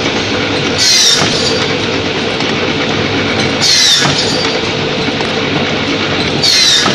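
Sawdust block cutting machine running with a steady hum, its saw cutting through the compressed sawdust board three times, about every three seconds; each cut is a brief louder burst with a high whine that falls in pitch.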